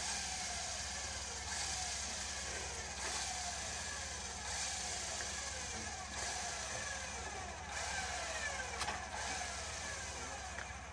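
Off-road vehicle engines running, their pitch dropping again and again over a steady low hum, with stretches of hiss.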